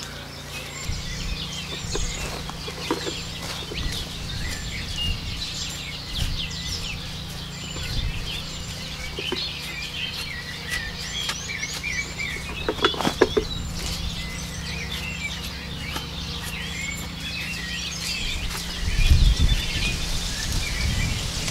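Birds chirping and calling in many short quick notes throughout, over a steady low hum. A louder low rumble comes in near the end.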